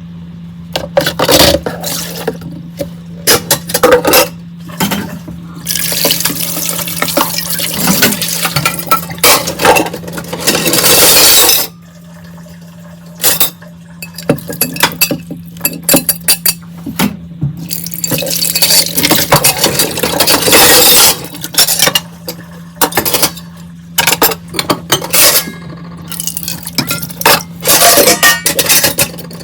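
Dishes, glasses and cutlery clinking and knocking in a kitchen sink, with tap water running over them in two long stretches. A steady low hum lies underneath.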